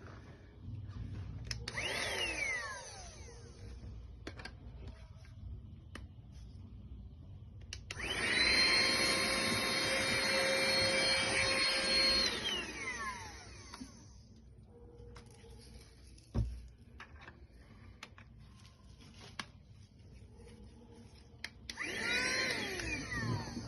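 Small cordless handheld vacuum cleaner's motor switched on three times: two short runs and a longer steady whining run of about four seconds in the middle, each ending in a falling whine as the motor spins down. Light clicks and a thump come between the runs.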